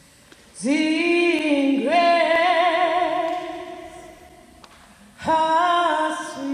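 A woman singing solo and unaccompanied: long held notes with vibrato, a first phrase that fades out, then a new phrase starting about five seconds in.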